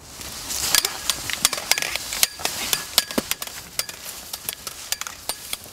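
Plastic prop sticks clacking together in a mock sword fight: an irregular run of sharp clacks, a few a second, over a steady rustling hiss.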